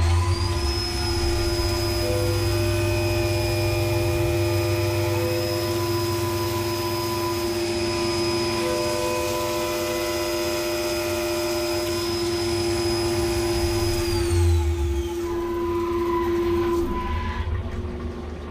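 Skyfire SVM-2 CNC mill's spindle coming up to speed with a steady high whine as it machines an aluminium block under flood coolant spray. About fourteen seconds in, the whine falls away as the spindle slows down.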